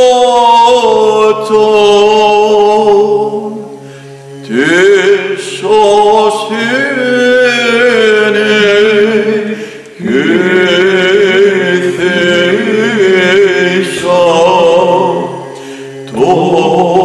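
Byzantine chant by men's voices. A cantor (protopsaltis) sings the melody in long, ornamented phrases over a steady low drone, the ison, held by the isocrates. The drone carries on through the short breaks between phrases.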